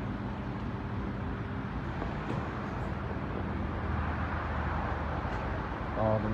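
A steady low mechanical hum, like a machine or engine running, with a brief voice near the end.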